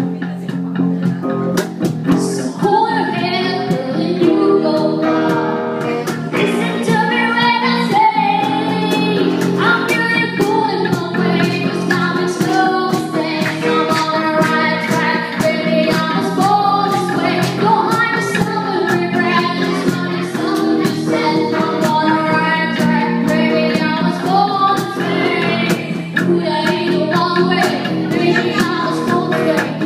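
A woman singing a song with a live band, guitar prominent in the accompaniment.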